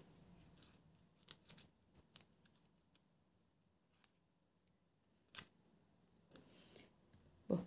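Faint paper rustling and light clicks as a thin strip of printed paper is curled over a fine pointed tool and handled with tweezers to give it a convex bend. There is one sharper click about five seconds in.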